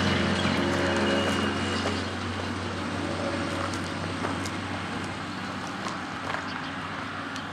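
Motor vehicle running along a road, heard from on board: a steady low engine hum under road noise, with scattered small clicks and rattles. A higher engine note fades out about two seconds in.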